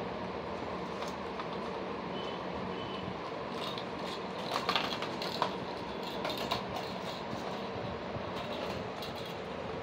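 Steady background noise, with a few light plastic clicks and rattles about halfway through as a Pomeranian puppy mouths a plastic ball rattle toy.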